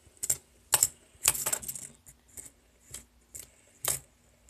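A fidget spinner being handled, making about eight irregular sharp clicks and short clattering rattles, with one longer rattle about a second in.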